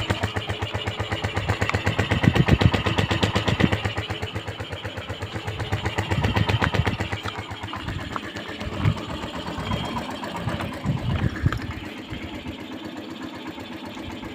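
Motorcycle engine running, its exhaust giving a quick, even pulsing beat; it swells a little a couple of times and settles lower near the end.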